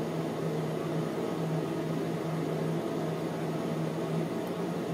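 A steady low hum with an even hiss beneath it, from an appliance or small motor running in the room.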